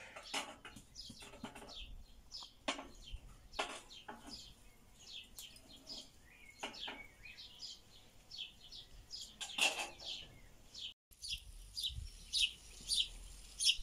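Small birds chirping repeatedly, with a few scattered clicks and knocks.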